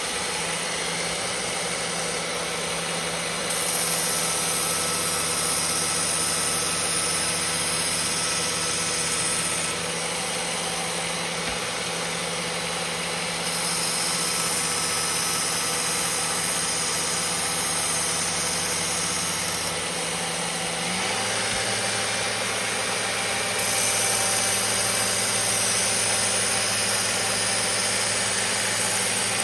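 Belt grinder running steadily with a 600-grit belt, with a chef's knife edge ground against it in three passes of about six seconds each. Each pass brings in a louder high hiss over the motor hum, as the edge is refined and the burr worked down after the coarse belt.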